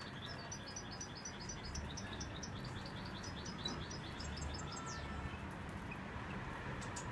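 European goldfinch singing: a fast run of short, high twittering notes that stops about five seconds in.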